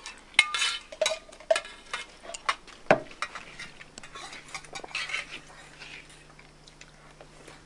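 Irregular sharp clinks and knocks of utensils against dishes, loudest about half a second in and near three seconds, thinning out after about four seconds. A faint low hum starts about three and a half seconds in.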